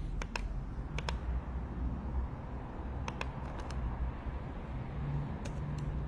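Sparse clicking from a computer keyboard, the clicks coming in quick pairs a few times, over a steady low hum.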